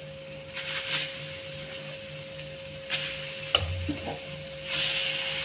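Moong dal batter sizzling quietly on a hot iron tawa, with a few light clinks of a steel spoon around the middle. Near the end a louder rasping hiss sets in as the spoon starts spreading the batter across the hot tawa.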